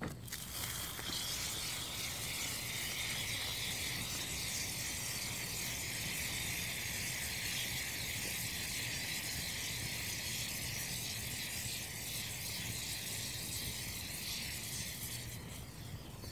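Gasoline burning over sodium reacting in water in a plastic tub, giving a steady high hiss over a low rumble.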